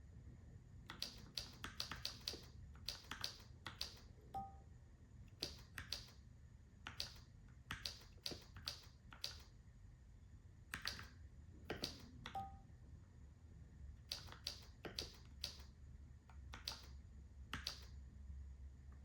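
Keystrokes on a Keychron K4 v2 mechanical keyboard with Gateron G Pro brown switches, typed slowly and unevenly in short runs with pauses, as in a beginner's touch-typing lesson. A short two-note beep from the computer sounds twice, about 4 and 12 seconds in.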